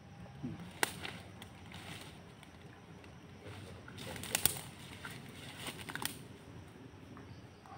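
A few sharp clicks or knocks, about a second in, around four and a half seconds and at six seconds, over a faint low background rumble.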